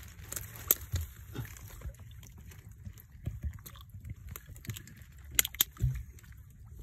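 Irregular light rustling and crackling close to the microphone, like grass and stems being brushed, with a sharp snap under a second in and two more close together about five and a half seconds in.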